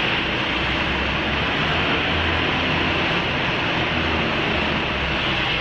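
Steady hissing noise with a low rumble underneath.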